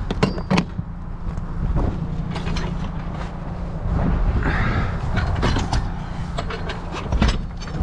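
Scattered clanks, knocks and creaks of a heavy steel floor jack and tire-change gear being handled and put away, over a steady low rumble.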